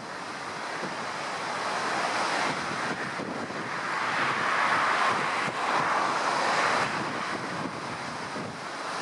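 Rough sea: surf breaking and washing, with strong wind buffeting the microphone. The rushing swells louder for a few seconds in the middle.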